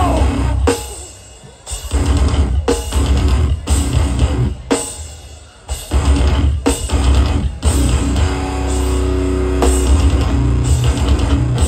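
Hardcore punk band playing live through a PA: distorted guitars, bass and drums in heavy riffs broken by short stops.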